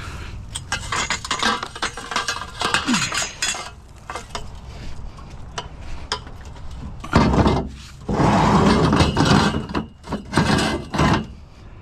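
Loose pieces of scrap metal clattering and clinking as they are handled and tipped in together. It is scattered clinks at first, then a louder run of clattering for a few seconds past the middle.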